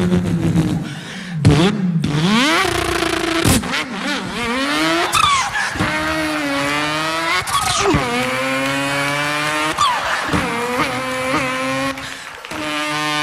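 A man imitating a racing car engine with his voice: the engine note climbs in pitch and drops back again and again, like an engine revving up through the gears, with a few sharp clicks and pops between.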